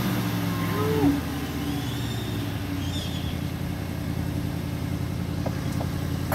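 Bentley Continental's twin-turbo V8 idling steadily, just after a rev, with a brief rise in level about a second in.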